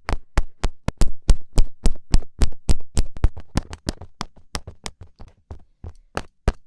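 Rapid sharp taps, about four a second, like a fingertip poking at something; they grow fainter in the last couple of seconds.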